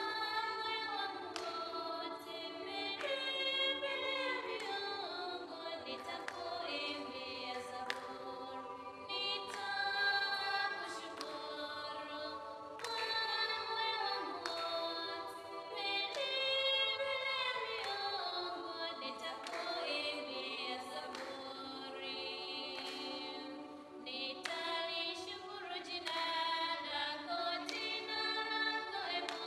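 A group of nuns singing a devotional hymn without instruments, several women's voices together, with rhythmic handclaps keeping the beat.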